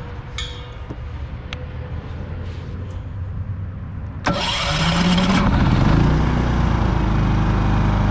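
A few light clicks at the controls, then a Champion Dual Fuel 3400 inverter generator, fed from a propane tank, starts about four seconds in. It revs up briefly and settles into a steady run.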